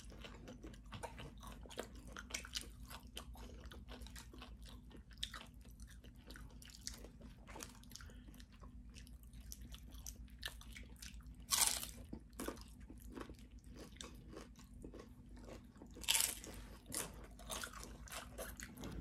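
Close-up crunching and chewing of tortilla chips from loaded nachos: a steady run of small crisp crackles, with two louder crunches about eleven and a half and sixteen seconds in.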